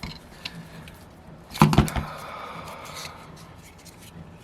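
Small parts and tools being handled on a workbench: light ticks and clicks, with a short cluster of louder knocks about a second and a half in.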